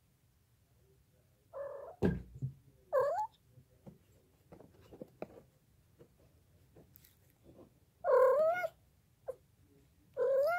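Domestic cat meowing four times, short calls that rise and fall in pitch: two in the first few seconds and two near the end, the one about eight seconds in the loudest. A thump comes about two seconds in, with a few faint soft taps in the middle.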